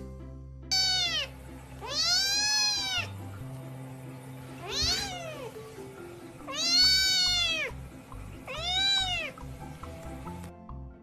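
A cat meowing five times, each meow rising then falling in pitch, over background music.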